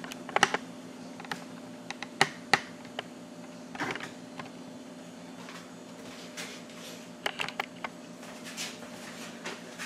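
Scattered light clicks and taps in small clusters, from handling the camera, over a steady low hum from the switched-on Flying Bear Ghost 3D printer.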